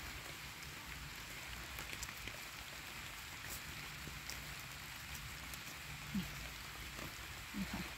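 Steady hiss of rain falling on the forest floor and leaves, with scattered single drops ticking close by.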